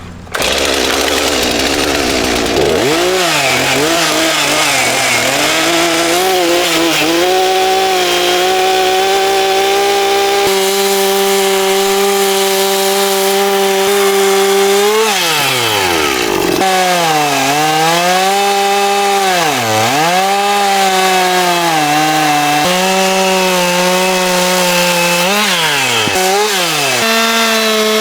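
Chainsaw running and cutting into wood, its engine pitch dipping again and again as the chain bites and picking back up, with one deep drop and return about halfway through.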